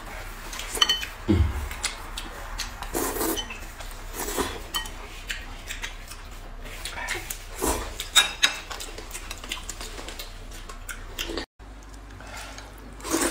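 Close-up eating sounds: noodles being slurped and eaten, with chopsticks tapping and clinking against glass and ceramic bowls in short, irregular bursts. The sound drops out briefly about eleven and a half seconds in.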